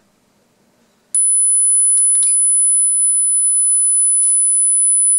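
Steady, very high-pitched sine-wave test tone from a sound-card signal generator, playing aloud as it feeds the oscilloscope. It starts suddenly about a second in, after near silence, with a few faint clicks shortly after.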